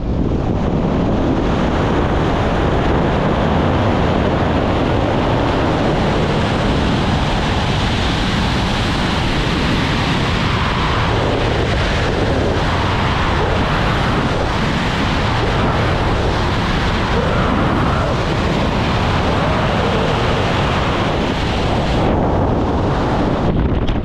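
Loud, steady rush of wind over the jumper's camera microphone during wingsuit flight. The hiss eases near the end as the parachute opens and the flight slows.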